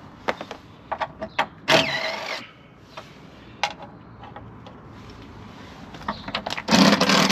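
Plastic bumper and wheel-arch trim being prised off a van: scattered clicks and knocks, a scraping stretch about two seconds in, and a louder rattling scrape near the end.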